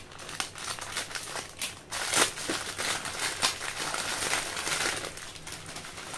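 Foil snack packet crinkling as it is cut open with scissors and pulled apart by hand, with the paper-wrapped contents rustling as they come out; loudest about two seconds in.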